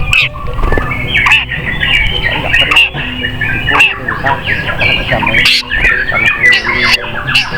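Many caged songbirds singing and chirping at once in a dense, overlapping chorus over a low crowd rumble, with several sharp clicks.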